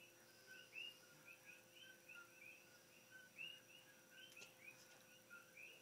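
Faint chirping that repeats in a steady run of short, high, arched calls, about two or three a second, from small animals such as frogs or insects, over a faint steady hum.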